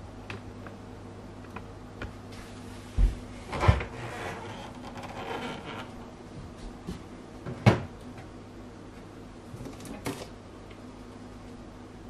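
Beko fridge door pulled open by hand, with two sharp knocks about three seconds in, followed by a couple of seconds of rustling. Louder knocks come near eight and ten seconds in as the door and its contents are handled. A steady low hum runs underneath.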